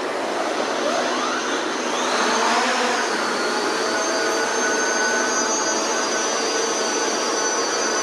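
Parrot Anafi Ai quadcopter drone's propellers whining as it flies. The pitch rises about one to three seconds in as it climbs off the floor, then it holds a steady, multi-toned whine while hovering.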